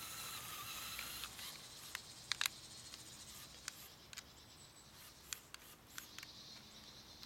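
Electric motors of a LEGO Technic RC car running with a faint whine that stops about a second in, followed by a few scattered sharp clicks.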